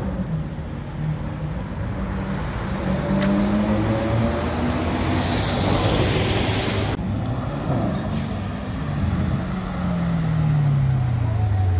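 City street traffic with engines running and a brief hiss around five to six seconds in. After a cut about seven seconds in, a sports car's engine note falls steadily over the last two seconds as it drives through a junction.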